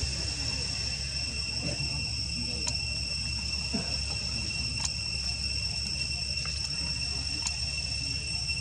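A steady, high-pitched insect trill held at one pitch throughout, over a low rumble, with a few faint clicks.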